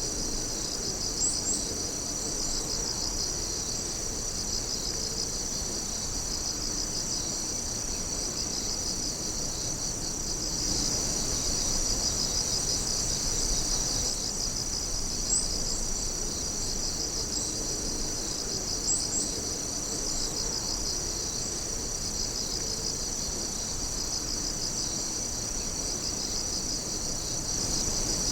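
A chorus of night-singing insects: a steady, high-pitched trilling that pulses rapidly, with a few brief sharper chirps standing out now and then.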